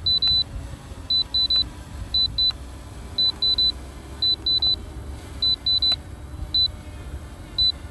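Short high electronic beeps from a drone's remote controller, in quick groups of two or three about once a second, over a low rumble of strong wind on the microphone.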